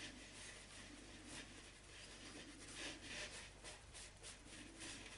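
Faint brushing and rubbing of hands spreading flour over a cotton tea towel, a run of short, irregular strokes of skin on cloth.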